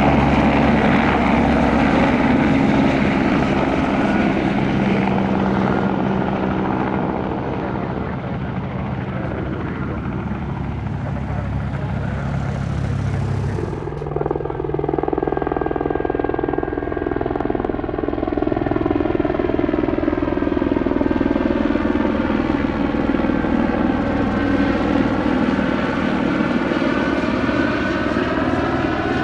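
Airbus Helicopters H125, a single-turboshaft helicopter, with rotor and engine running loud and steady as it lifts off and climbs. The sound changes abruptly about halfway in, and from then on it flies past overhead, its tone sweeping and phasing as it moves.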